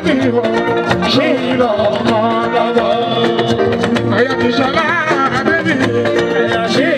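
Live Fuji music: a male lead singer over dense percussion and held chords.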